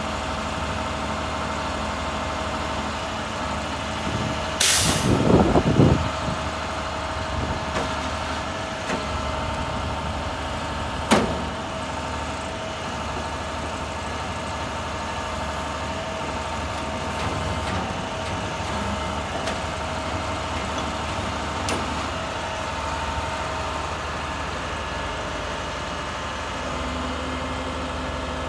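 Grapple truck's engine running steadily while the hydraulic knuckle boom moves the grapple, with a steady whine throughout. A loud burst of noise comes about five seconds in, and a sharp knock about eleven seconds in.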